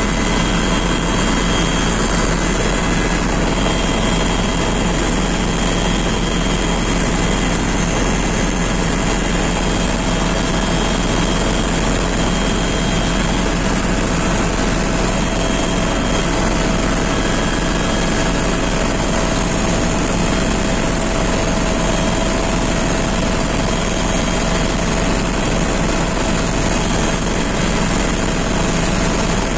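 Steady aircraft cabin noise in flight: engine and airflow noise heard from inside the cabin, with a constant hum and no change in level.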